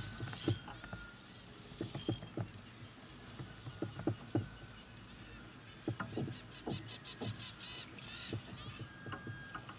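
Scattered light knocks and clicks of fishing tackle and paddle handled on a plastic kayak, with two brief hissy bursts in the first couple of seconds. About six and a half seconds in comes a run of quick, even high ticks lasting a second or so.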